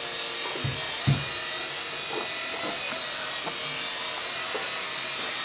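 Air Hogs GyroBlade toy R/C helicopter's small electric motor and rotor whirring with a steady high-pitched whine. A brief low thump comes about a second in.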